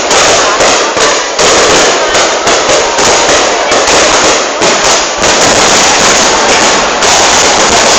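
Fireworks display: a rapid barrage of bangs, several a second, merging into a continuous loud crackle in the second half.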